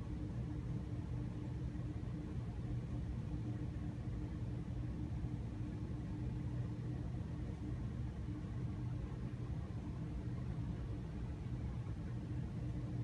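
Steady low mechanical hum with a faint hiss that stays even throughout.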